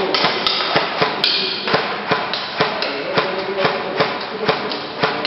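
Airsoft gun firing a steady string of shots, sharp clicks about three a second, with BBs knocking on targets.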